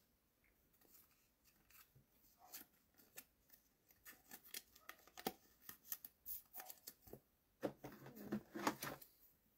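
Faint crinkling and rubbing of a thin clear plastic card sleeve as a trading card is slid into it by hand, a scatter of small clicks and rustles that starts about four seconds in and grows busier near the end.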